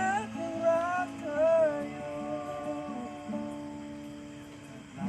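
Background music: a Thai pop ballad with acoustic guitar. A voice sings the end of a line and holds a last note that fades out over the guitar chords.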